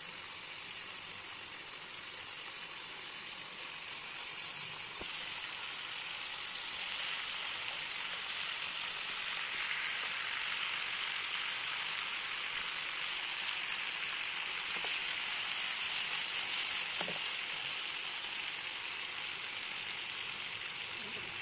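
Marinated chicken pieces sizzling as they fry in hot oil in a pan, a steady sizzle that grows a little louder in the middle. The pieces are being browned to a golden colour.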